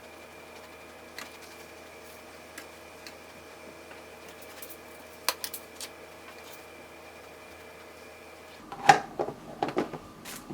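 Microwave oven running with a steady hum and a few faint ticks, cutting off suddenly about nine seconds in. It is followed by several sharp clattering knocks of plastic dishware being handled, the first the loudest.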